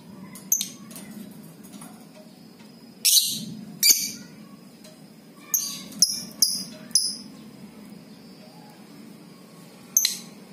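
Lovebird giving short, sharp, high-pitched chirps: a single one, then a pair, a quick run of four, and one more near the end.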